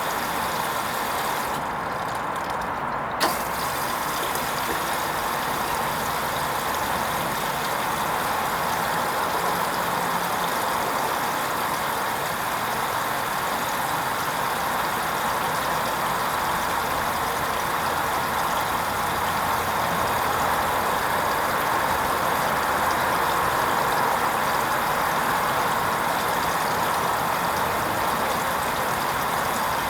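Hoover Vision HVP16 front-loading washing machine running its wool rinse programme: a steady mechanical noise, with one short click about three seconds in.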